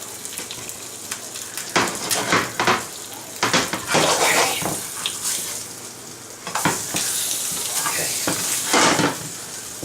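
Tortilla sandwiches frying in a hot pan, a steady sizzle, with a spatula scraping and clattering against the pan many times from about two seconds in.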